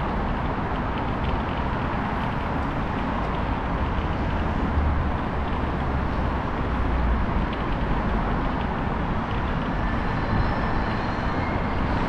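Steady city street ambience: a continuous traffic hum with a low rumble underneath.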